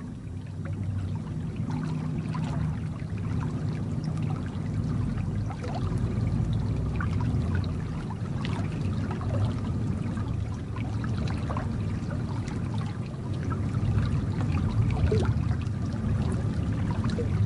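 Shallow stream flowing: a steady rush of water with small trickling splashes throughout.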